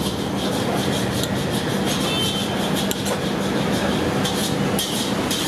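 Masala dosa sizzling on a large hot flat griddle, with short crackles over a steady, loud rushing noise and a faint low hum.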